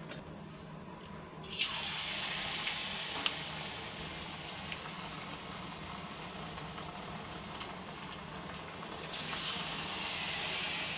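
Batter-coated ash gourd slices sizzling as they deep-fry in hot oil in a kadai. The sizzle starts suddenly about a second and a half in, with a few sharp pops, and swells again near the end.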